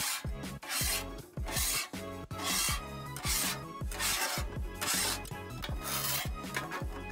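Metal griddle scraper scraping rust off a steel griddle top in repeated rasping strokes, about nine of them, one a little under every second. Background music with a steady beat plays underneath.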